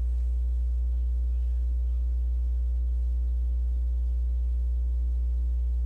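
Steady low electrical hum with a few faint higher overtones, unchanging throughout, as from mains hum in the recording chain.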